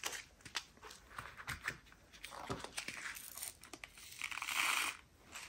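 Small plastic drill bag crinkling, with square resin diamond-painting drills clicking and rattling as leftovers are tipped into the nearly full bag. There is a short hiss about four seconds in, then scattered clicks.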